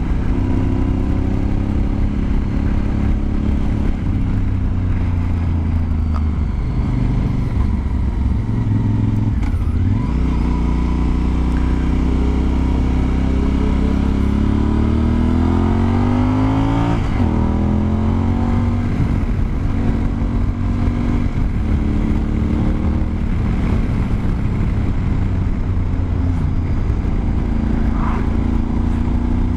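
Honda Varadero XL1000 motorcycle's V-twin engine running under way, its pitch rising and falling with the throttle. There is a long steady climb in pitch that drops away sharply about seventeen seconds in.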